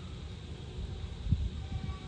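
A few dull low thumps, the loudest about two-thirds of the way in, over a steady low rumble.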